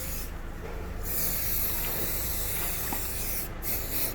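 Aerosol can spraying in one continuous hiss of about two and a half seconds, fitting lubricant being sprayed on a creaking Land Rover Discovery Sport door.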